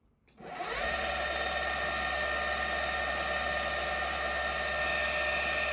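E-bike mid-drive motor spinning up under full throttle, its whine rising in pitch for about half a second and then holding a steady high speed. It keeps running without cutting out on a newly fitted controller, which points to the old controller as the likely fault.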